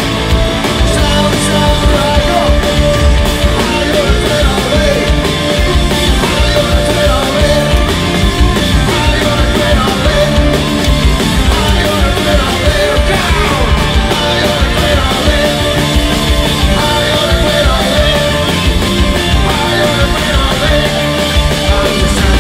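Live rock band playing loud: distorted electric guitars over bass guitar and drums, with a lead guitar line sliding in pitch around the middle.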